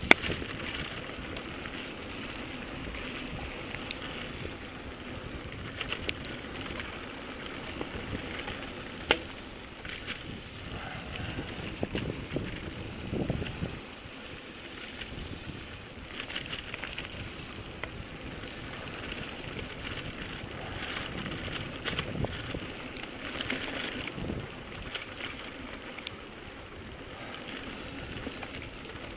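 Mountain bike rolling down a rough dirt and gravel trail: the tyres crunch over stones and wind buffets the microphone. The bike gives a few sharp clacks and rattles as it jolts over rocks, the loudest right at the start.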